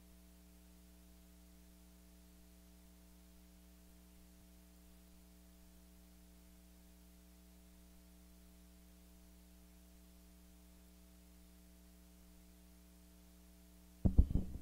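Faint, steady electrical mains hum from the microphone line. About fourteen seconds in, it is broken by loud bumps and knocks as the microphone is handled and adjusted on its stand.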